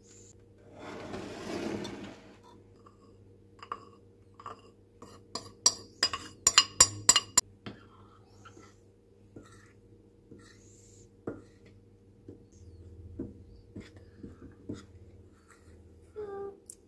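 A metal spoon working flour in ceramic bowls: a soft rush of flour at the start, then a quick run of about eight sharp clinks of spoon on bowl near the middle, then quieter scraping and tapping as the flour is stirred into the wet mix.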